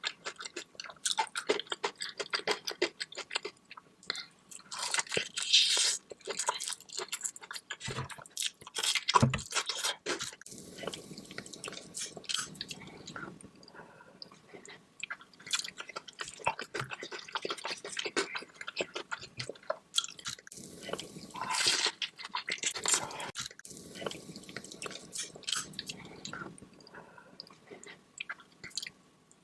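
Close-miked wet chewing and mouth smacking of someone eating seafood in butter sauce, with irregular clicks all through and a few longer slurping stretches about five and twenty-two seconds in.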